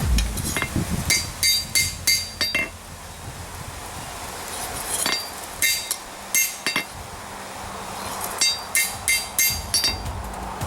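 Hand hammer striking hot steel on an anvil in three runs of quick blows with short pauses between, each blow ringing with a high, clear tone: hand-forging a farrier's rasp into a knife blade.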